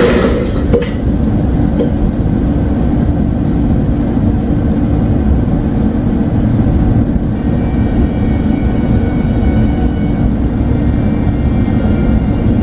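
Steady, loud low rumbling drone with faint steady higher tones above it.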